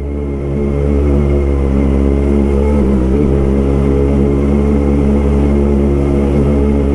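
Sport motorcycle engine running steadily as the bike is ridden slowly, holding one even, unchanging note.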